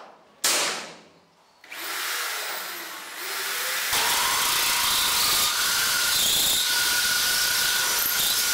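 A single sharp knock about half a second in that rings for about a second. Then a power drill with a 38 mm hole saw spins up and cuts through 3 mm mild steel plate: a steady, loud grinding with a thin squeal running through it, at full cut from about four seconds in.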